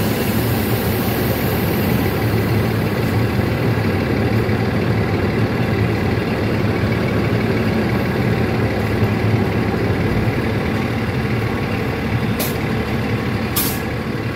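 Train's diesel engine idling with a steady low drone, and two short hisses near the end.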